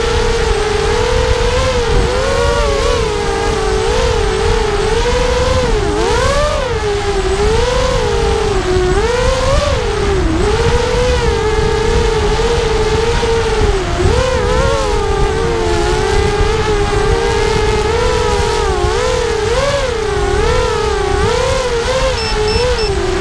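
Brushless motors and propellers of a mini FPV racing quadcopter, heard from its onboard camera: a steady whine whose pitch rises and falls over and over with the throttle, over a low rush of wind on the microphone.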